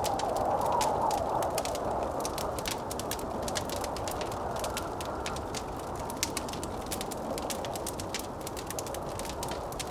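Wood fire crackling with frequent sharp pops, over a steady blowing of winter wind that swells briefly in the first couple of seconds.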